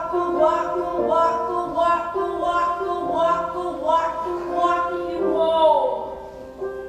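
Recorded song playing, with a woman singing over the melody; it dips in loudness near the end.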